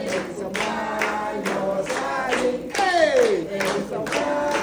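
A song with singing voices, with a long falling vocal slide about three seconds in.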